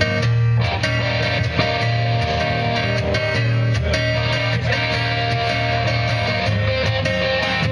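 Live guitar music from two guitars, the acoustic guitar strummed, amplified through microphones, with a steady low bass end.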